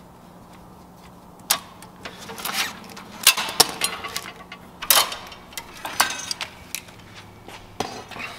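Engine-bay wiring being yanked loose by hand: a sharp snap about a second and a half in, then an irregular run of clicks, clatters and short scrapes as wires and connectors pull free and knock against metal.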